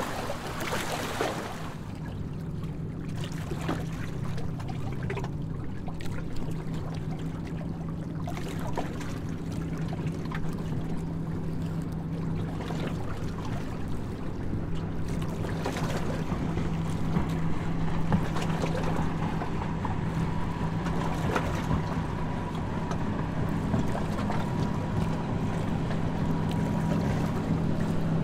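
Harbour tour boat's engine droning steadily, with the rush of water and wind around the boat, growing slightly louder toward the end.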